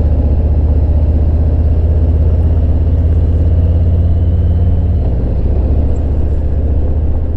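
Harley-Davidson Road King's Milwaukee-Eight V-twin engine running at a steady cruise, a deep, even exhaust rumble. The note changes slightly about five seconds in.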